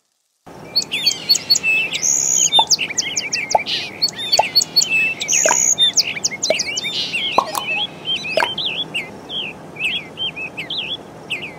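Many small birds chirping and twittering together in a dense chorus of quick, overlapping calls, starting about half a second in, with a few short lower notes scattered through it.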